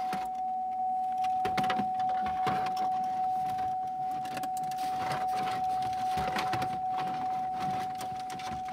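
Plastic dash trim panel rustling, scraping and clicking as it is worked into place behind the steering column, with a steady high-pitched tone sounding unbroken underneath.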